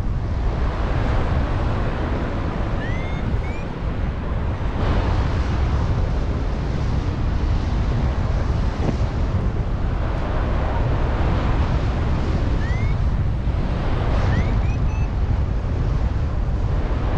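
Strong wind rushing and buffeting over the microphone of a paraglider in flight, a steady loud rumble. A few faint short rising chirps sound briefly at two points.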